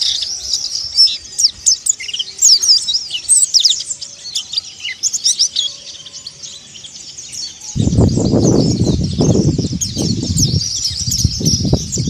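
Mountain white-eye (pleci montanus) chirping and twittering in quick, high, squeaky notes and short trills. About eight seconds in, a loud low rushing noise starts under the birdsong and continues.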